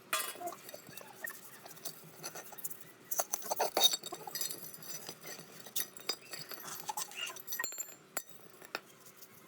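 Small metal parts and tools clinking and knocking against each other at an irregular pace, with a louder cluster of knocks a little before the middle.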